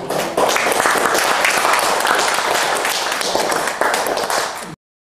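Applause from a small group, many hands clapping together. It stops abruptly near the end.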